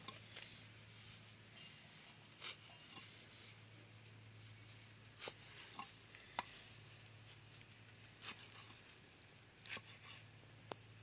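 A machete chopping leafy green stems on a wooden block, one sharp chop every one to three seconds at an uneven pace, over a faint steady low hum.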